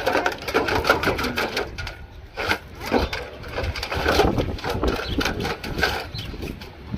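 Husky puppy splashing and pawing at water in a stainless steel bowl: a rapid, irregular run of splashes, with wind rumbling on the microphone.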